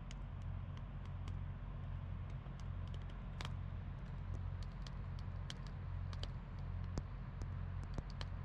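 A steady low hum that pulses slowly and evenly, with scattered faint clicks and ticks over it.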